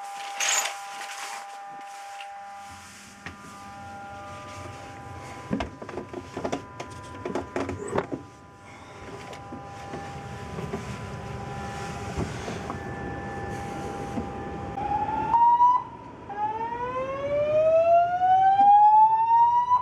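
Building fire alarm sounding: a steady electronic tone with a few knocks, then a short rising note and, from about sixteen seconds in, a loud slow-whoop tone sweeping upward in pitch, the evacuation signal that leads into the voice message. It is a false alarm.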